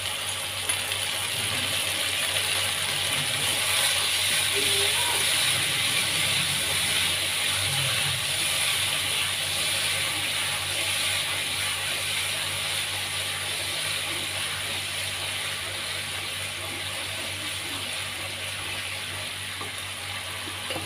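Sauce sizzling and bubbling in a hot wok, just poured over sautéed garlic and chili, with a spatula stirring it now and then. It swells over the first few seconds, then slowly dies down as the liquid settles to a simmer.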